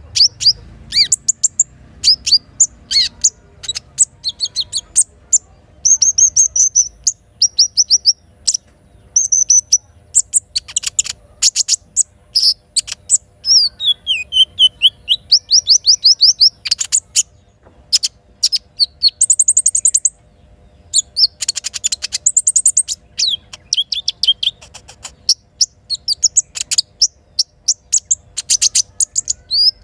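Sogok ontong songbird singing in rapid, high chirps and trills, in bursts with short pauses between them; some phrases fall in pitch.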